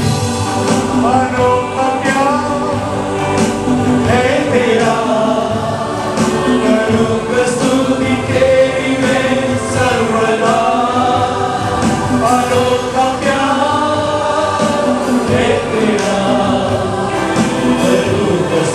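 Congregation singing a worship song together with musical accompaniment.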